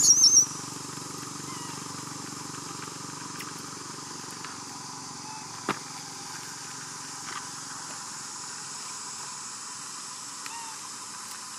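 A macaque's short, high-pitched, warbling squeal right at the start. It is followed by a steady high background hiss with a few faint chirps and one sharp click about halfway through.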